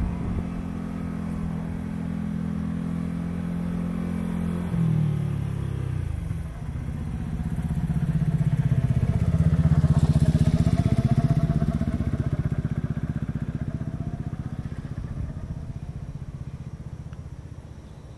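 Vehicle engines passing close by: a steady engine tone that drops in pitch about five seconds in, then a second pass that rises and falls, loudest around halfway, and fades out toward the end.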